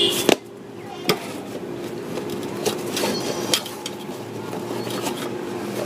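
A handful of sharp metal knocks and taps from tyre-repair tools, the loudest two in the first second or so and lighter ones after, over a steady low hum.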